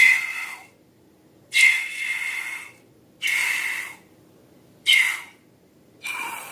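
Air let out of a rubber balloon's neck in short spurts, a hissing squeal at a steady pitch, five times.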